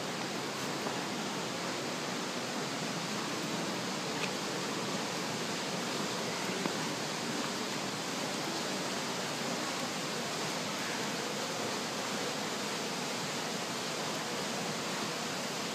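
Steady, even rush of falling water from an indoor waterfall.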